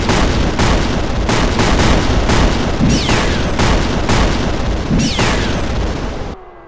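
Sound-effect explosions and blasts going off one after another, about two a second, over a low rumble, with a falling whistle now and then. The barrage cuts off sharply near the end.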